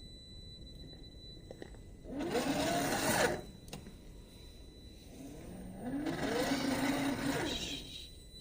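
Brushed 550 electric motor and gearbox of an RC rock crawler whining under throttle in two bursts, about two seconds in and again from about five and a half seconds, the pitch rising as it speeds up.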